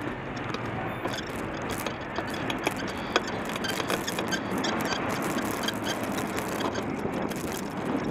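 Bicycle riding picked up by a helmet camera: a steady rush of wind and road noise with frequent small clicks and rattles.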